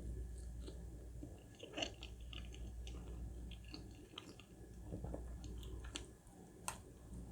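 Close-miked chewing of soft red velvet cake with cream cheese frosting: quiet wet smacks and small mouth clicks, with a sharper click a little before two seconds in and another near the end.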